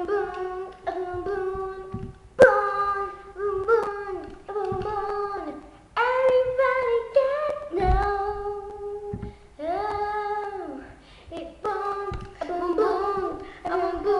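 Young girls singing with high voices, holding some notes, with a sharp click about two and a half seconds in.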